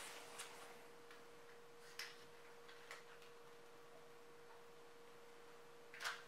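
Near silence over a steady faint hum, broken by a few soft clicks and rustles; the loudest comes near the end.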